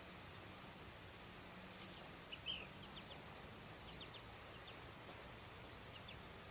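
Faint outdoor ambience: a steady hiss, with a few short, high chirps of a small bird scattered from about two seconds in.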